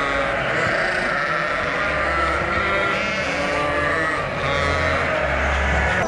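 A flock of sheep bleating, many calls overlapping, at feeding time as feed is poured into their trough.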